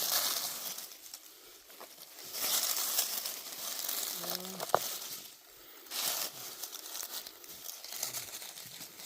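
Dry leaf litter crunching and rustling in three spells, with one sharp click a little past halfway.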